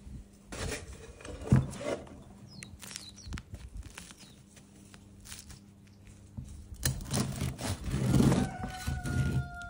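A serrated bread knife sawing through the crust of a baked wholemeal sourdough loaf, a scratchy rasping from about seven seconds in. Before that come knocks and handling noises, the loudest about a second and a half in, as the loaf is tipped out of its metal loaf tin and turned in the hands.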